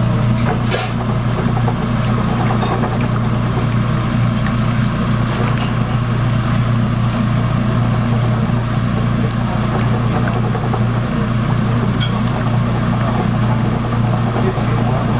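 Steady low mechanical hum of stall equipment, unchanging throughout, with a few light clicks of utensils on cookware.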